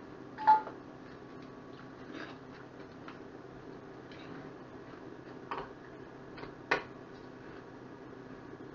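Tin cans being handled on a kitchen counter: a sharp knock about half a second in, two more knocks at about five and a half and nearly seven seconds, and light clicks and taps between.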